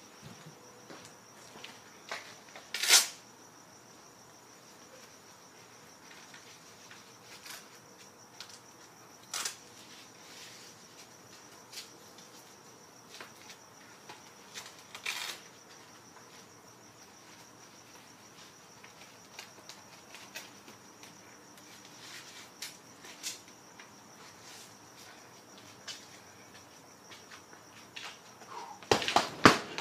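Crickets trilling steadily in one high, even tone, with scattered soft clicks and knocks. About a second before the end, a quick run of strikes starts landing on a hanging heavy punching bag.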